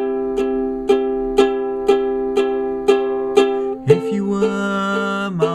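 Ukulele strummed steadily, about two strums a second, in an instrumental break of a song. About four seconds in, a man's voice holds one long note that bends down at its end.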